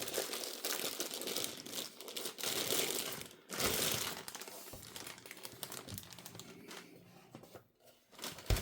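Packaging crinkling and rustling as a new soldering station's contents are unpacked, busiest in the first four seconds and fading after; a single knock near the end.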